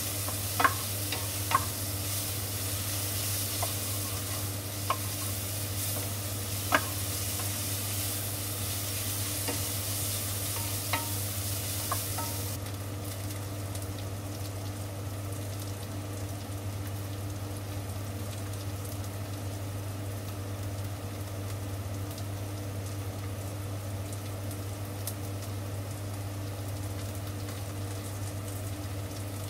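Sliced onions sizzling as they brown in a frying pan, with a spatula stirring and knocking against the pan several times in the first twelve seconds. About twelve seconds in the sizzle suddenly drops and carries on quieter, over a steady low hum.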